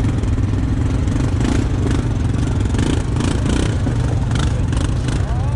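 ATV engine running steadily, with irregular clattering over it.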